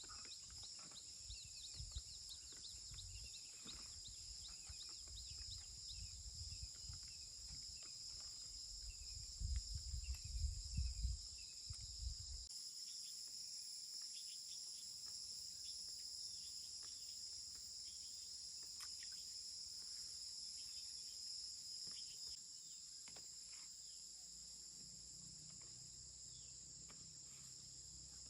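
Steady, high, continuous insect chorus, with short bird-like chirps now and then. Low rumbling and knocks sound under it in the first half, loudest about ten seconds in, and stop about twelve seconds in.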